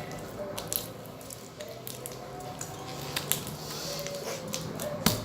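Homemade glue-and-detergent slime being worked by hand on aluminium foil: scattered small wet squishes and sharp clicks.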